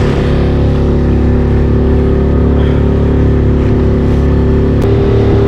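Suzuki outboard motor running steadily with the boat under way, the hull working through choppy water. The engine's note shifts slightly near the end.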